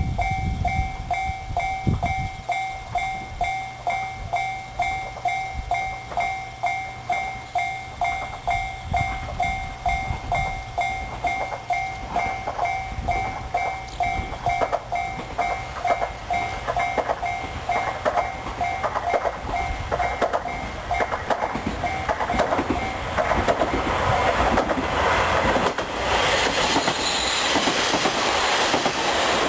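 Japanese level crossing warning bell ringing in a steady pulse, about two dings a second. A train runs over the crossing, its wheels clacking over the rail joints, and the train noise builds until it drowns the bell in the last several seconds.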